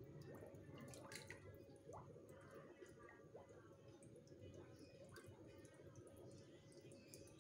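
Faint water dripping and trickling into a garden fish pond, over a faint steady hum.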